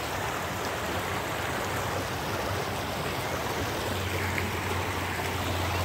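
Rain-swollen creek rushing steadily. A low hum comes in about four seconds in.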